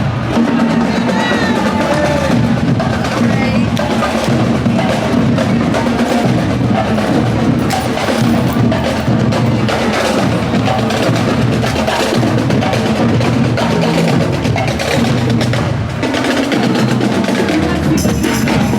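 Music with a busy percussion beat.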